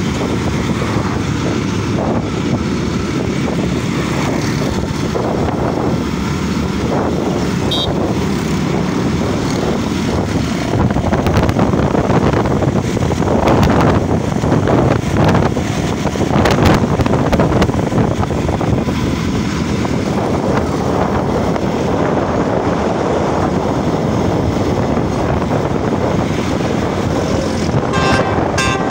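Passenger train running: a steady rumble of wheels on the track with wind on the microphone. It grows louder for several seconds in the middle, with a run of knocks, and there is a brief high tone near the end.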